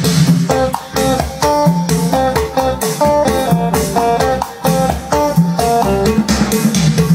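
Plucked guitar music played back through JVC Victor SP-EXA10 wood-cone bookshelf speakers driven by a Luxman A3500 valve power amplifier. The guitar plays a continuous run of single picked notes, each fading away, over a steady bass line.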